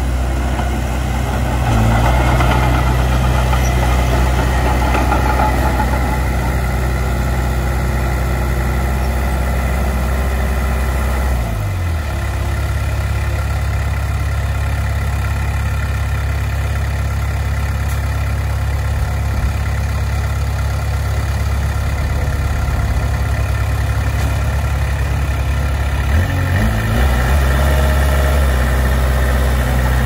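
Diesel engines of a small Komatsu crawler bulldozer and a dump truck running as they work, a steady low drone. The engine note shifts in pitch about two seconds in, again around the middle, and a few seconds before the end.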